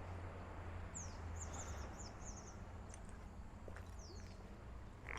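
Birds calling: short, high, falling chirps, a quick run of them between about one and two and a half seconds in, with single ones before and after, over a faint steady low hum.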